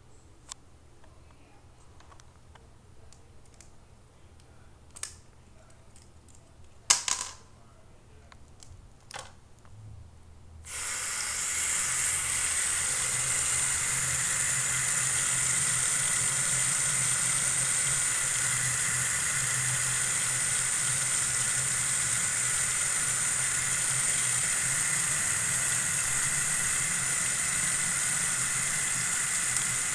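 A few faint clicks and knocks of handling, the loudest about seven seconds in. Then, about ten seconds in, a bathroom sink faucet is turned on, and tap water runs steadily into the basin and down the drain.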